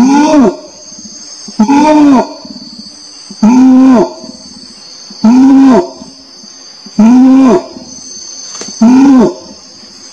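Orangutan calls: a short pitched call that rises and then falls, repeated six times at an even pace of about one every 1.8 seconds, over a steady high-pitched hiss.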